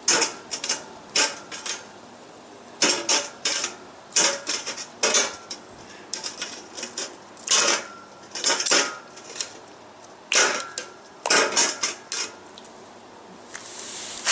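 Irregular metallic and ceramic clinks and knocks: tongs and tools striking a clay crucible and the metal around it while the gold ingot is being freed. A brief hiss rises near the end.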